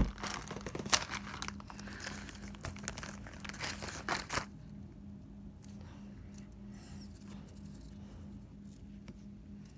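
Packaging being crinkled and torn open to get mini neon slinkies out, dense rustling for about four seconds and then only occasional small clicks and rustles. A steady low hum runs underneath.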